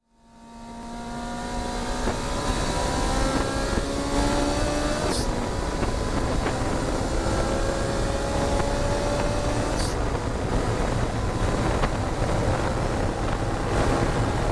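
Ferrari 458 Challenge's 4.5-litre V8 race engine pulling under load, its pitch climbing slowly, heard from inside the car with wind and road noise underneath. The sound fades in over the first couple of seconds.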